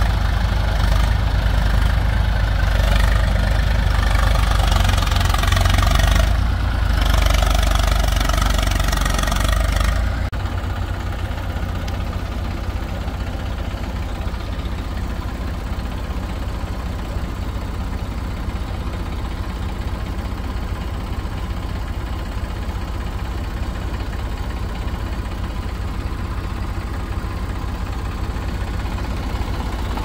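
Diesel engine of heavy machinery running, loud and harsh for about the first ten seconds, then dropping suddenly to a quieter, steady run like an idle.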